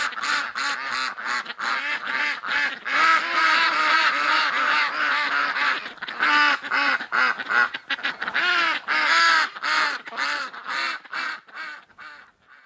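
A flock of domestic ducks and geese quacking and honking, many calls overlapping several times a second, fading out near the end.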